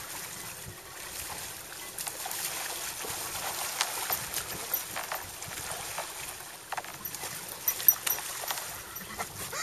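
Lake water sloshing and trickling as people in drysuits move through a hole in thin ice, with thin ice plates cracking and clinking in scattered sharp clicks, the loudest about eight seconds in.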